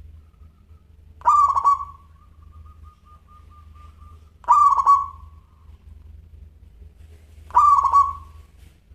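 Zebra dove (perkutut) singing: three loud cooing phrases about three seconds apart, with a run of soft, quick notes trailing after the first.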